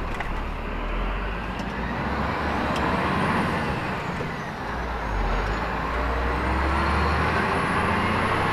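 Scania truck's 480-horsepower straight-six diesel pulling along, heard from inside the cab: a steady low engine rumble with high turbo whistles that rise and fall.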